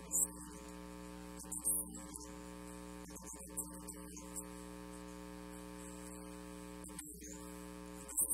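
Steady electrical mains hum from a sound system: an unchanging buzz of several even tones, with a few brief hissy bursts.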